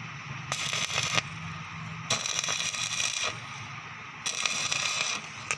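Electric arc welding: three bursts of crackling arc, each about a second long, struck and broken in turn, over a steady low machine hum.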